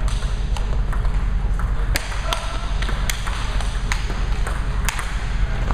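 Table tennis ball being struck back and forth in a rally: sharp, irregularly spaced clicks of the ball off the bats and table, over a steady low rumble.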